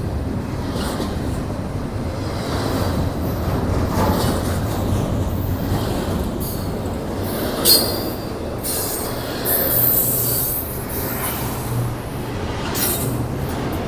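Union Pacific intermodal double-stack freight cars rolling past with a steady rumble of steel wheels on rail, broken by short high-pitched wheel squeals a little past halfway.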